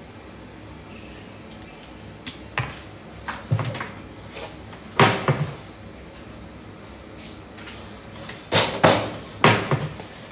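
Scattered clinks and knocks of a spoon and ceramic bowl being handled on a stone countertop, with quiet gaps between them. The loudest comes about halfway through, and a quick run of three comes near the end.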